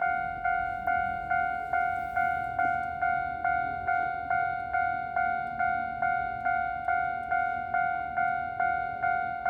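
Japanese railway level crossing warning bell ringing: an electronic clanging tone struck evenly, about two and a half times a second, signalling that a train is approaching and the crossing is closed.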